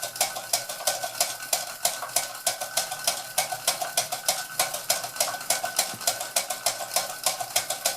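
Small Ernest Plank upright toy steam engine running under the load of a toy water mill, beating out quick, even chuffs at about five a second, with a thin steady tone above them.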